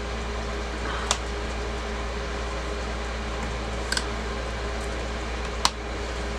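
Three sharp clicks of a small screwdriver and screw against a laptop's plastic bottom case while a screw is taken out, over a steady background hum.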